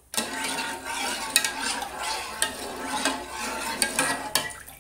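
Steel ladle stirring milk in an aluminium saucepan, a steady scraping swish with several light clinks of metal on metal.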